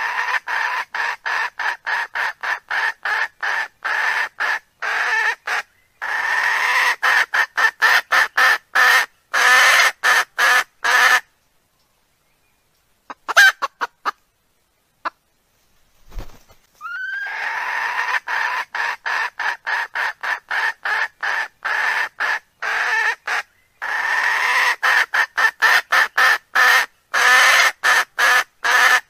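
Wild chicken calls played as a hunting lure: rapid clucking, about three calls a second, in long runs that each open with a short rising squawk. There is a pause of a few seconds with only scattered calls midway. The identical sequence then repeats, the mark of a looped recording.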